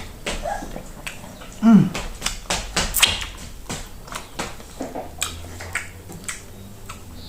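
Close-up eating sounds: wet lip smacks and chewing clicks while hand-eating plantain fufu with okra soup. There is a short falling "mm" of pleasure a little under two seconds in.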